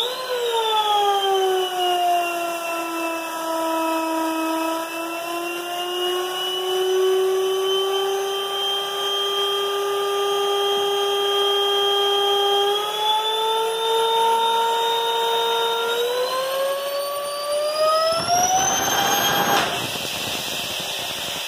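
Home-built Tesla-style air turbine with lexan blades spinning at high speed on compressed air: a steady high whine with several overtones that sags a little, holds, then climbs in pitch as it speeds up over the last few seconds. Near the end a loud rush of air breaks in under the rising whine.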